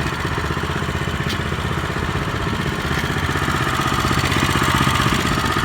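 Engine of a used Japanese walk-behind rotary tiller running steadily, with a faint whine that grows a little louder in the second half.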